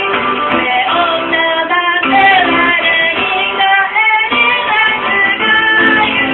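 A woman singing a song as she strums an acoustic guitar.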